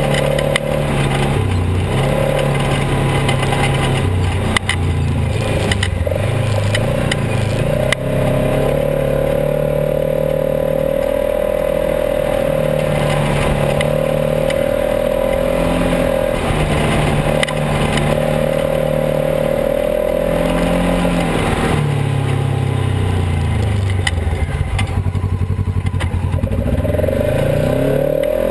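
Polaris RZR XP 900 side-by-side's twin-cylinder engine running while driving a rough dirt trail, its pitch stepping up and down with the throttle, with rattles and knocks over the bumps. Near the end the engine revs up in a quick rising sweep.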